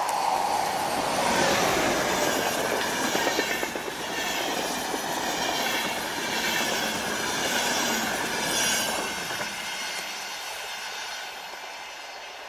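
A PKP Intercity EU44 Husarz electric locomotive and its passenger coaches pass at speed without stopping. A whine falls in pitch in the first couple of seconds as the locomotive goes by, then the coaches' wheels rush and clatter rapidly over the rails, fading away near the end.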